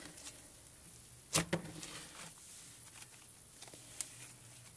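Cloud butter slime (glue slime with instant snow and soft clay) being stretched and pulled apart by hand, with faint soft crackling. A sharp click about a second and a half in, and a smaller one near four seconds.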